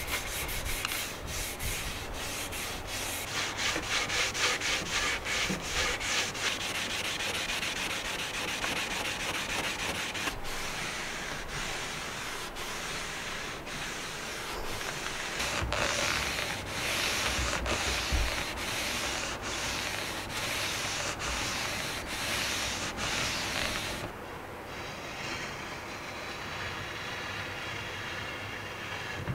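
Repeated back-and-forth rubbing on wood as a wax finish is worked into a wooden longbow with steel wool and a cloth, in quick scratchy strokes. About 24 s in, the sound turns quieter and softer.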